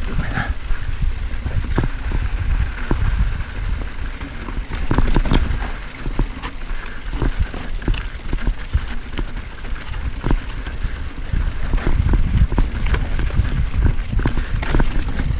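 Mountain bike rolling fast down a dirt singletrack. The tyres rumble over dirt and rock, with frequent sharp clicks and rattles from the bike over bumps, and a steady buffeting of wind on the microphone underneath.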